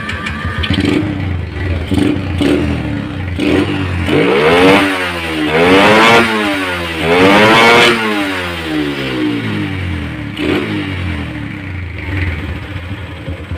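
Yamaha Jupiter MX carbureted four-stroke single-cylinder engine idling, then revved hard three times in quick succession, each rev rising and falling. It settles back to idle, with one short blip near the end. The bike is being revved up to the CDI's rev limiter.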